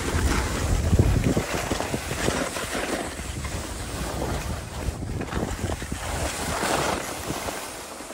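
Skis hissing and scraping over groomed snow in swells as they turn, with wind buffeting the microphone, heaviest in the first couple of seconds.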